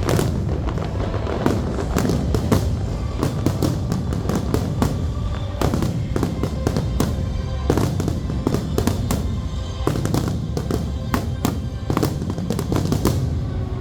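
Pyromusical fireworks display: aerial fireworks bursting and crackling in rapid succession, dozens of sharp reports, over loud accompanying music.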